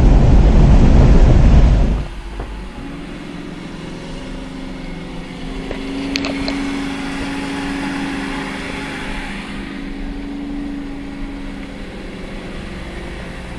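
A car engine at full throttle, very loud, cuts off abruptly about two seconds in. After that a car engine runs steadily at light load, with a steady hum that swells a little in the middle.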